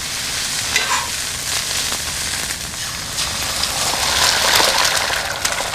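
Steaks and eggs sizzling on a hot flat-top griddle: a steady, dense frying hiss with scattered sharp crackles, a little louder after about four seconds.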